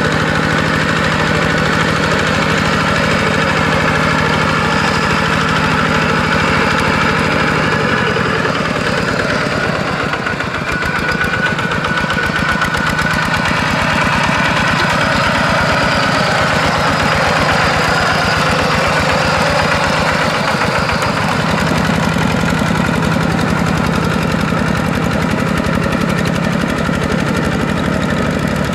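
Kubota walking tractor's single-cylinder diesel engine running steadily under load as it pulls a tiller through wet paddy mud. Its note shifts about a third of the way in and again about two-thirds through.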